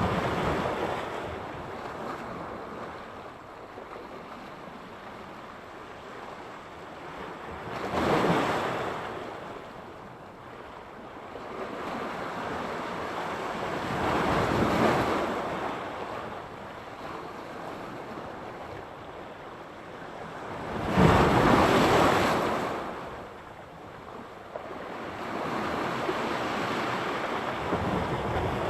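Sea surf: waves breaking and washing in one after another, a surge every six or seven seconds, the loudest about three-quarters of the way through.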